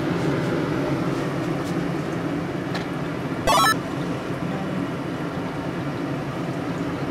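Steady low mechanical hum, with a short jingle of quick stepped tones rising in pitch about three and a half seconds in, like a video-game 'level up' sound.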